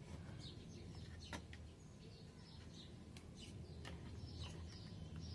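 Faint bird chirps in the background with a few sharp clicks. The multimeter's continuity buzzer stays silent: the Boss GT-6 switch under test shows no continuity.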